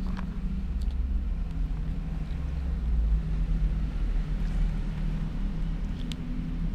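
A steady low drone like a motor running nearby, with a few faint clicks.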